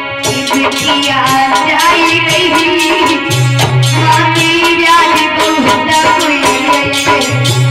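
A woman singing a Hindi folk farewell song (vidai geet), with a melody that glides and bends, over live hand-drum accompaniment.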